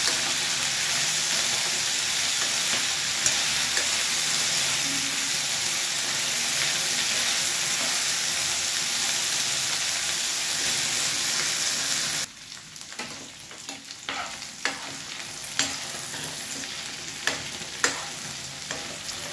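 Potato strips frying in oil in a nonstick pan, a steady sizzling hiss. About twelve seconds in the sizzle drops abruptly to a quieter level. Sharp clicks and scrapes of a spatula stirring against the pan then come through.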